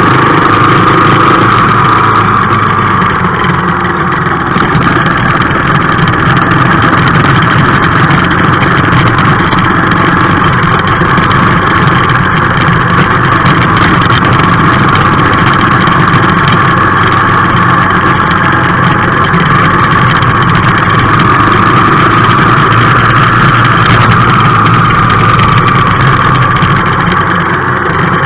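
A motor vehicle's engine running at a steady pitch as it drives over dirt and cobblestone roads, with a constant hum and road noise.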